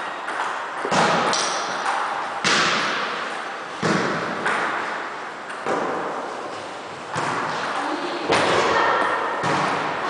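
Repeated sharp thuds and slaps, one roughly every second or so, each ringing on in the echo of a large hall.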